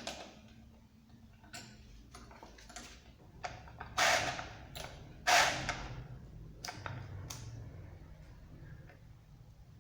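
Hard objects being handled and set down: a series of separate clicks and knocks, the two loudest about four and five seconds in, over a low steady hum.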